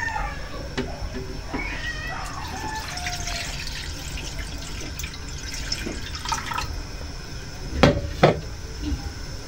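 Seawater poured from a bottle into an empty metal wok, splashing and running against the metal. Two sharp knocks come near the end.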